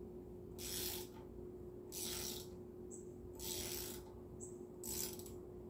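Hand ratchet working loose a tight bracket bolt, four short bursts of ratcheting clicks about a second and a half apart as the handle is swung back between pulls. The bolt is held hard, which the mechanic suspects is from Loctite.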